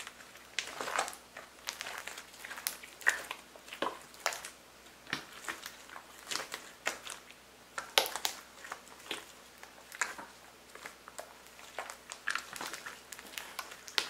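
Glossy slime squeezed and kneaded by hand, making wet squishes with irregular sharp clicks and small pops, several a second.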